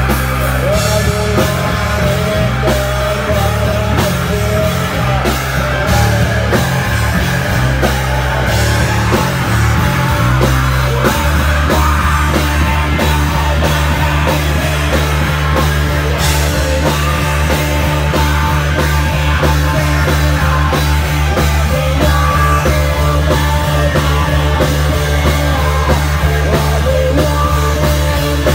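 Four-piece rock band playing a song with drums, bass and guitar; the bass line changes to steadier held low notes about eleven seconds in.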